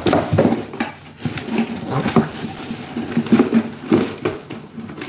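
A cardboard toy box and its packaging being handled close to the microphone: irregular rustling, scraping and tapping.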